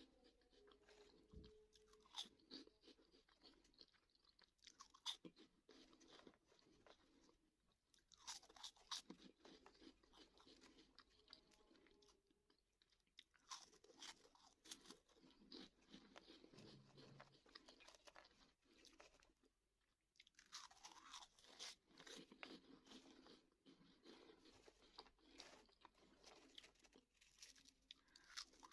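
Crunchy Bozo snack balls being bitten and chewed close to the microphone, crackling crunches in bursts with short pauses between mouthfuls.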